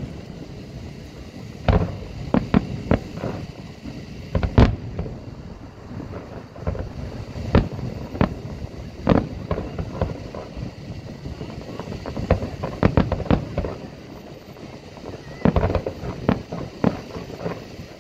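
Aerial fireworks shells bursting in an irregular series of sharp bangs, some coming in quick clusters of several reports. The loudest bang is about four and a half seconds in.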